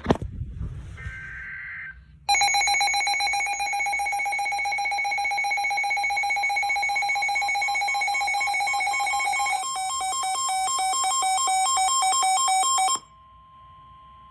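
Weather alert radio's electronic alarm sounding for an incoming warning: a loud, steady, buzzy tone that switches to a rapid pulsing pattern near ten seconds in and cuts off suddenly about thirteen seconds in. A sharp knock comes at the very start.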